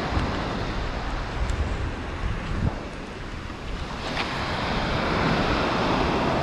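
Ocean surf breaking and washing up a sandy beach, with wind buffeting the microphone. About four seconds in, a wave's wash rushes up and the sound grows louder.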